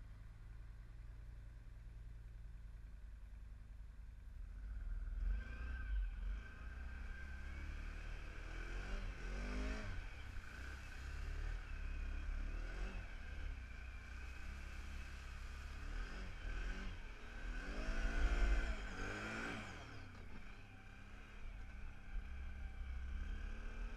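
Off-road vehicle engine running under a steady low rumble, revving up and down several times as it drives, with a steady high whine over it. It picks up a few seconds in, and the loudest revs come about three-quarters of the way through.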